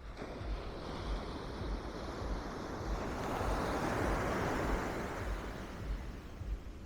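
Ocean surf: a wave breaking and washing up the beach, swelling to its loudest about midway and then fading, with low wind buffeting on the microphone.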